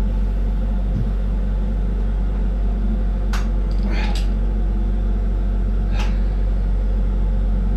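Steady low hum and rumble of a lampworking bench with the torch burning, with a few faint clicks about three, four and six seconds in.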